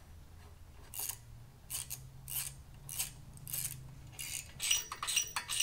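Hand ratchet clicking in repeated back-strokes while exhaust header flange nuts are tightened, about one and a half strokes a second, quicker near the end.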